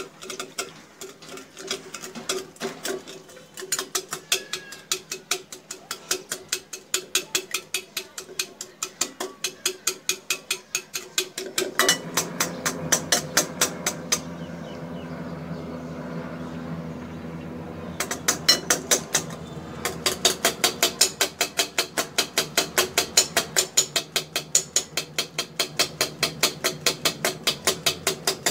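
Wire balloon whisk beating a thin liquid mixture in a ceramic bowl, the wires clicking against the bowl in a quick, even rhythm of about three to four strokes a second, with a short pause partway through.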